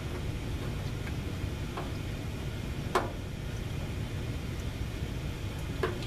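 A few scattered light clicks and taps from hands and tools handling parts on the underside of a tankless water heater, the sharpest about three seconds in and another near the end, over a steady low hum.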